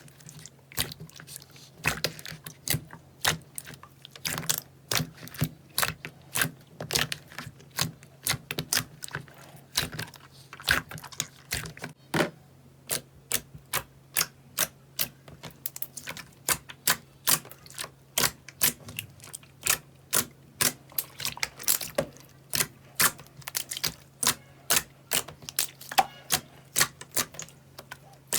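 Slime being pressed and poked, giving a fast, irregular run of sharp clicking pops, about two or three a second, over a faint steady low hum.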